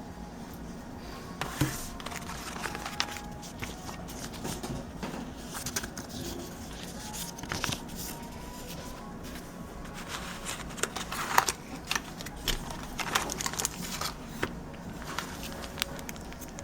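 Packaging being handled: plastic and cardboard crinkling and rustling, with many irregular clicks and scrapes as the box and its contents are moved and opened.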